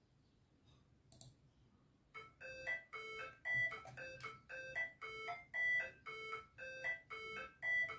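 A song starting up as playback through a compact FX-AUDIO 502E-L class-D amplifier and its speakers. After a soft click about a second in, a quiet intro of short, bright repeating melody notes begins about two seconds in, a few notes a second.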